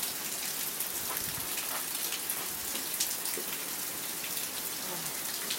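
Steady rain from a hurricane's outer band, falling as an even hiss with scattered individual drops hitting close by.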